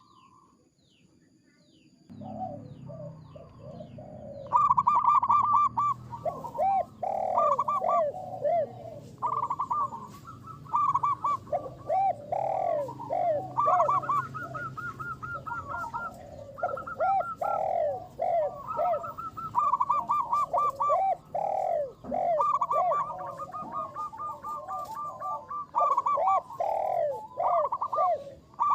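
Zebra doves (perkutut) cooing over and over, the rapid rolling coo notes of more than one bird overlapping at a lower and a higher pitch. The cooing comes in about two seconds in and is loud from about four seconds on.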